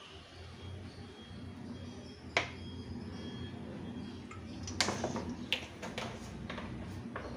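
Cooking oil being poured into a hot aluminium pot, with a faint low hum throughout. A sharp click comes about two and a half seconds in, then a handful of sharper clicks and taps from about five seconds in, the loudest of them first, as the oil bottle is handled and set aside.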